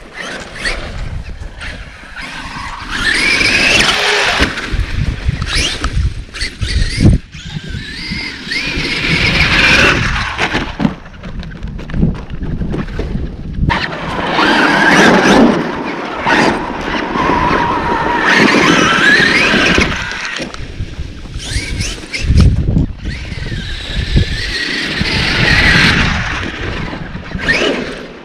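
Traxxas X-Maxx radio-controlled monster truck's brushless electric motor and drivetrain whining, rising in pitch with each burst of throttle, over several runs.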